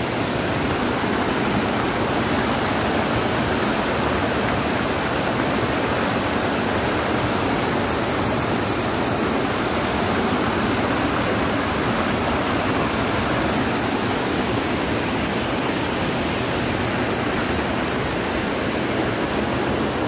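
Small waterfall pouring over a rock ledge into a pool: a steady, unbroken rush of falling and churning water.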